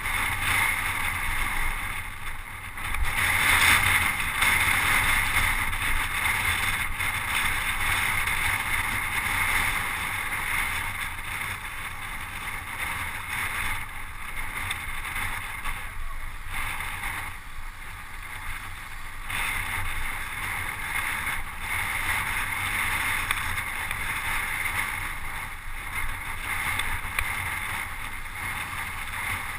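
Steady rush of wind on the microphone of a camera riding with a road bike at racing speed, mixed with road noise; it swells loudest a few seconds in, then settles.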